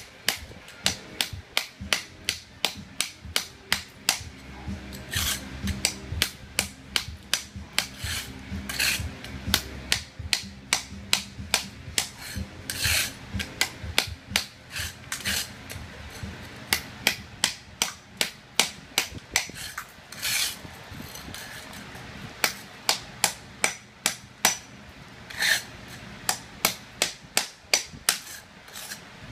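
Hammer tapping steadily on a chisel to chip away ceramic tile, about two sharp strikes a second, with a few longer, brighter sounds now and then.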